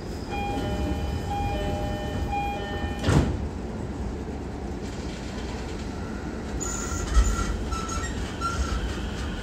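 Inside a Musashino Line electric commuter train: a door chime plays a short repeated tone pattern, and the sliding doors shut with a thud about three seconds in, over a steady low rumble. Another knock follows near seven seconds.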